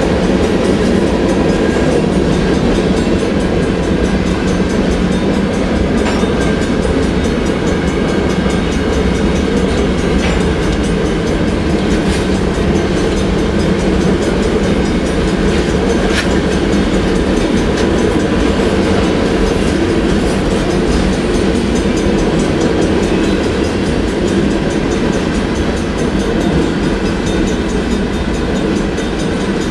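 Empty covered potash hopper cars of a long freight train rolling past: a steady rumble of steel wheels on the rail with a light clickety-clack and a few sharp clicks.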